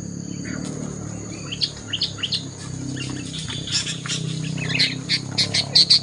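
Sooty-headed bulbuls calling: many short, sharp chirps that grow thicker and louder toward the end, over a steady low hum.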